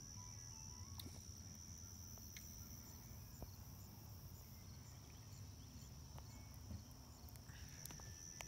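Faint night insect chorus, crickets trilling in one steady high-pitched tone, with a few faint clicks.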